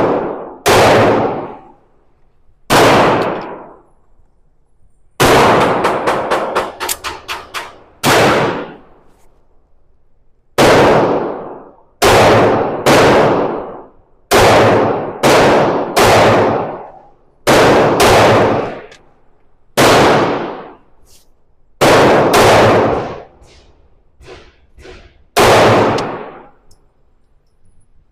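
SIG P365 X Macro 9mm pistol firing about sixteen slow, spaced shots, one every one to two seconds, with a few longer pauses. Each shot leaves a long echoing tail.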